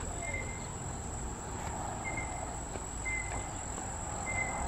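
Insects singing: a steady high-pitched trill, with a short chirp repeating about once a second.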